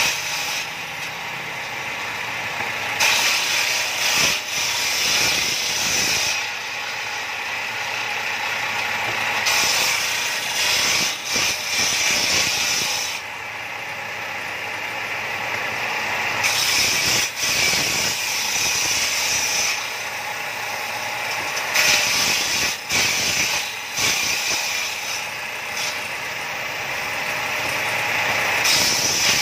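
Table-mounted circular saw ripping wooden boards in repeated passes: a high cutting whine comes in about five times as each board is pushed through, easing back to the blade running free between cuts.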